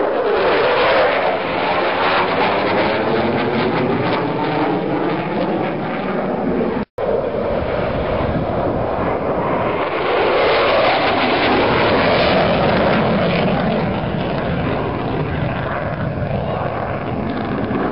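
Military fighter jet flying past, loud jet engine noise with a falling sweep in pitch as it goes by. A brief cut about seven seconds in, then the jet noise swells and falls away again.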